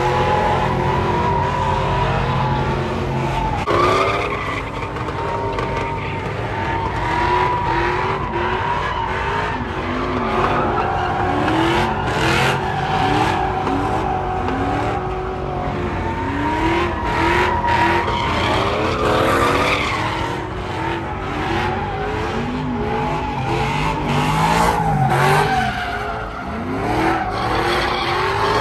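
Pickup trucks doing burnouts: engines revving hard in repeated rising runs while the spinning rear tyres squeal steadily.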